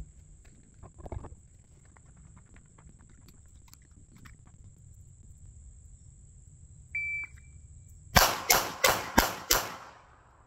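A shot timer beeps once. About a second later a CZ Shadow 2 pistol fires five quick shots in under a second and a half.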